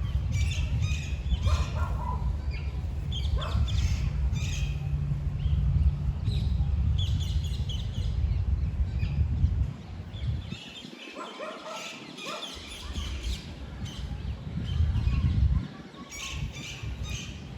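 Birds chirping and calling in short clusters over wind buffeting the microphone. The wind makes a low rumble that lets up briefly twice, a little past halfway and near the end.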